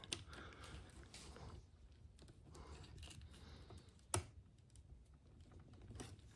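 Faint, scattered clicks and taps of small RC car axle parts and bearings being handled, with one sharper click about four seconds in.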